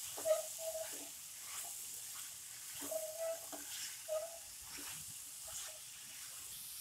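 A spatula stirring chopped potatoes and green beans in a non-stick kadai: repeated short scrapes against the pan over a soft, steady sizzle of the cooking vegetables.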